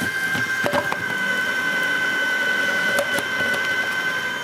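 Electric food processor running with a steady high motor whine while raw potatoes are pushed down the feed tube onto a grating disc with star-shaped holes, with a few sharp knocks of potato against the spinning disc, about a second in and again near three seconds.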